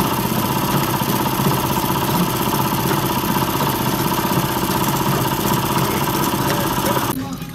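Motor-driven grinding machine running steadily, its spinning pestle grinding a wet paste in a steel basin. The drone drops away about seven seconds in.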